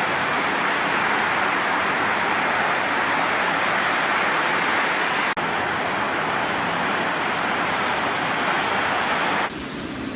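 Steady, loud rushing noise of a severe storm, wind and driving rain. It breaks off for an instant about five seconds in, and near the end it drops suddenly to a quieter, lower rumble.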